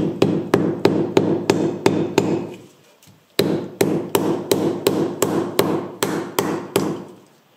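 Repeated mallet blows driving a reinforced silentbloc rubber bushing into a lower engine mount, about three strikes a second. The blows come in two runs, with a short pause a little before the middle.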